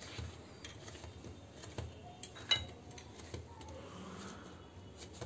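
Faint soft thumps and rubbing of hands kneading a ball of whole-wheat dough on a stone countertop, with a light clink about two and a half seconds in.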